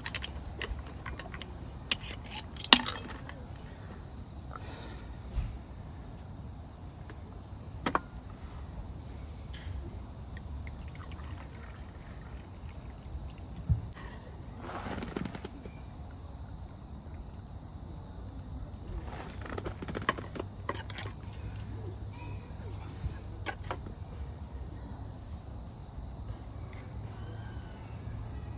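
Crickets chirping in one steady, unbroken high-pitched drone throughout, with a few small sharp knocks, the loudest about 3 seconds in.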